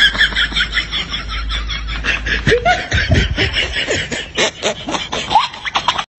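Laughter: a long run of quick, high-pitched laughs, several a second, cut off abruptly near the end.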